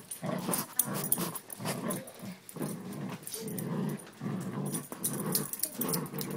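Pet dog growling in a run of short, low, rough grumbles, one after another about every half second.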